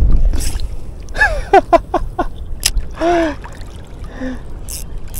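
A man's short wordless vocal exclamations: a quick run of them about a second in and one longer, falling one about three seconds in, over a low rumble of wind on the microphone.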